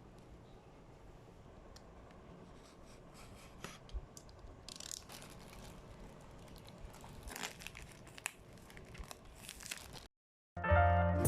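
Product packaging being handled and torn open, quiet crinkling and tearing with scattered small clicks. It stops suddenly near the end, and music starts.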